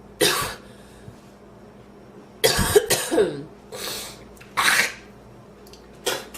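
A woman's coughing fit, typical of trying to clear a piece of inhaled food from the windpipe. A single cough, then after a pause a rapid run of harsh coughs, followed by three more spaced-out coughs.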